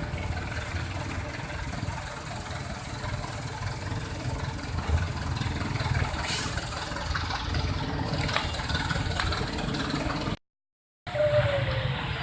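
Vehicle engines running and idling in street traffic over a steady wash of noise. The sound cuts out for a moment near the end.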